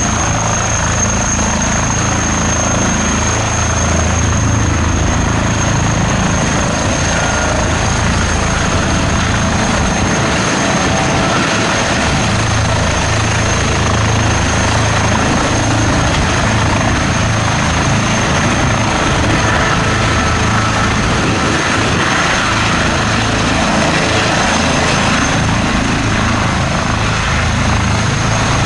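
Airbus H160 helicopter hovering low during takeoff: a loud, steady beat from its five-blade main rotor under a constant high whine from its twin turboshaft engines and Fenestron ducted tail rotor.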